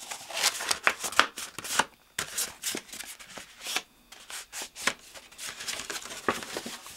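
A sheet of brown paper being handled and folded into thirds by hand: a run of irregular crinkles and rustles, with brief pauses.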